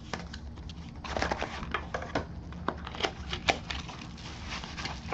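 A small cardboard box being opened and its packaging handled: an irregular run of sharp clicks, crackles and rustles, busiest about a second in and again past the middle.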